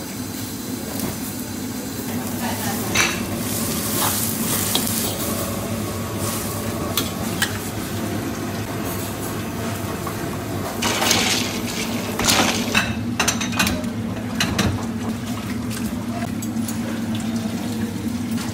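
Cooking and handling of shrimp: a metal spatula and wire strainer clinking and scraping against a wok and steel bowls, with scattered knocks that bunch up in the second half, over a steady low hum.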